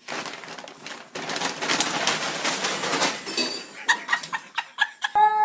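Brown paper bag crinkling and rustling loudly as a kitten scrambles in it, followed by several light separate taps. Near the end there is a brief high-pitched cry.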